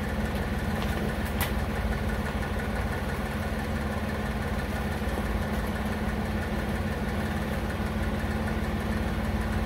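Steady mechanical hum of a running motor, even in pitch and level, with one sharp click about a second and a half in.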